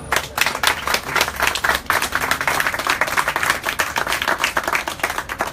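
Audience applauding, starting all at once and thinning out near the end.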